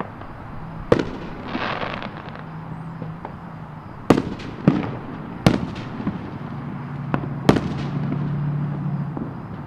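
Distant aerial fireworks shells bursting: about five sharp bangs, one about a second in and the rest between four and eight seconds, with a crackle spreading out after the first.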